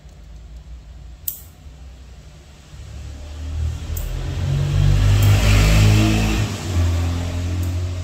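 A motor engine's low hum builds from about three seconds in, is loudest around five to six seconds with a hiss over it, then drops back. A sharp click about a second in.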